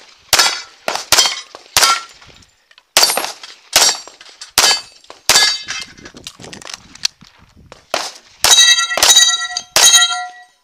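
CZ Tactical Sport pistol firing a string of shots at steel plate targets, each shot answered by the plate's metallic ring. The shots come slowly at first, then faster near the end, where the steel rings loudest with clear, lingering tones.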